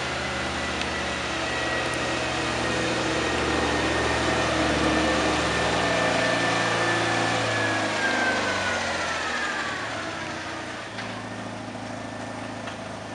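Lohr FL-501 fardier's Citroën 2CV6 602 cc air-cooled flat-twin engine driving, louder for the first few seconds. A high whine falls in pitch as the vehicle slows around eight to ten seconds in, and the engine then runs more quietly at idle as it stops.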